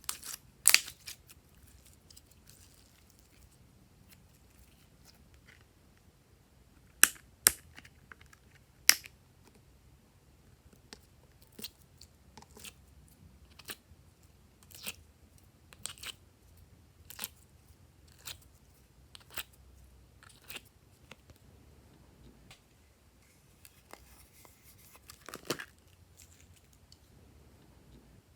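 Glossy slime being pressed and folded by hand, giving sharp sticky clicks and air-pocket pops, with a run of them at about one a second through the middle and a longer crackle near the end.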